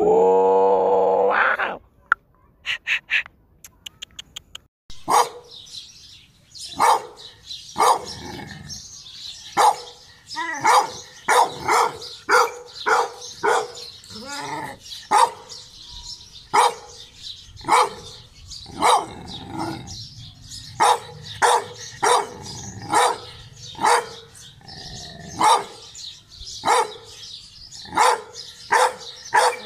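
A chained brindle bull-terrier-type dog barking over and over in a steady run, about one bark a second. It starts about five seconds in, after a short, loud, rising cry.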